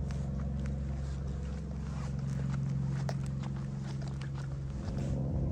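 A ferry's diesel engine running with a steady low drone, faint ticks and knocks scattered over it. The drone eases slightly near the end.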